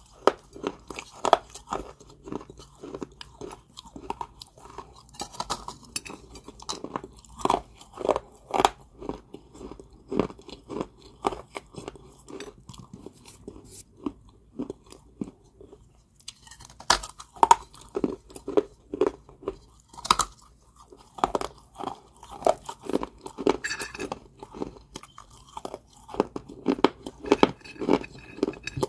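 A person biting and chewing crunchy balls of Georgia White kaolin clay close to the microphone: a run of dry, irregular crunches. The crunching stops for about two seconds halfway through, then resumes.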